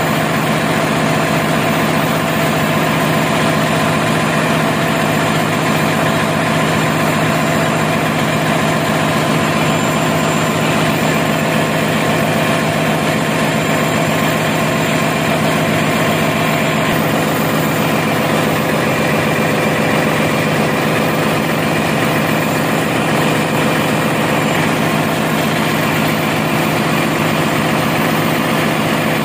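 Yanmar diesel generator engine running at a steady speed, a loud, unchanging drone with a low hum.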